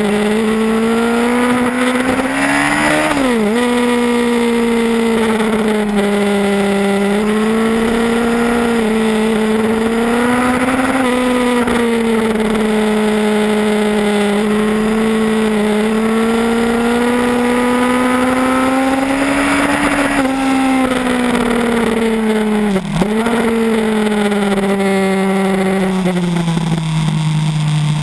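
Yamaha R1 sport bike's inline-four engine running hard under load, its note rising and falling through the corners with wind rush over the onboard microphone. The note drops sharply and recovers twice, about three seconds in and again near 23 seconds, like quick gear changes. It then falls away to a lower, steady note near the end.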